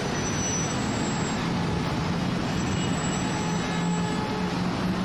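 Steady street traffic noise, a continuous roar of vehicles with no music yet.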